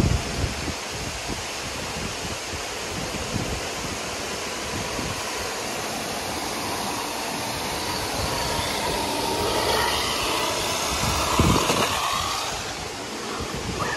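Steady rush of water from a fountain, with a 2S electric RC Baja bug's motor whining and its tyres hissing on wet paving. The car grows louder and its pitch shifts from about eight to twelve seconds in as it passes close by. There are low thumps at the start and about eleven seconds in.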